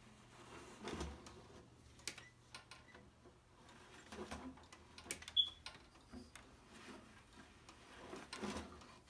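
Faint handling sounds of hand-weaving at a wooden floor loom: clicks and rustles as weft yarn is worked through the warp threads by hand, with three soft thumps a few seconds apart and one sharp click near the middle, over a steady low hum.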